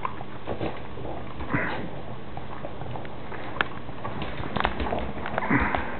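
Cavalier King Charles spaniels licking and smacking at a sticky peanut butter cake: scattered wet clicks and smacks that get busier in the last couple of seconds, over a steady low hum.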